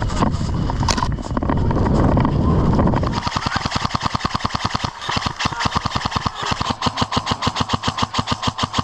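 Airsoft electric gun firing on full auto: a rapid, steady rattle of about ten shots a second that starts about three seconds in and keeps going. Before it there is a low rumbling noise.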